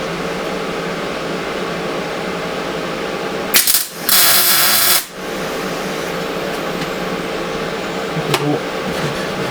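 Steady workshop machine hum, broken about a third of the way in by a sharp clack and then a loud hissing burst of about a second that cuts off suddenly, with a short knock near the end.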